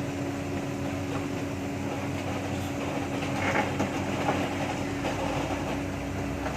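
Heavy diesel machinery engine running steadily at an even pitch, with a few faint knocks in the middle.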